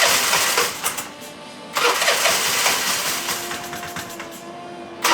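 Derbi Boulevard scooter's Piaggio Leader 150 single-cylinder four-stroke engine being started: cranked in two loud bursts, catching on the second and settling into a steady run, with engine flush in its fresh oil.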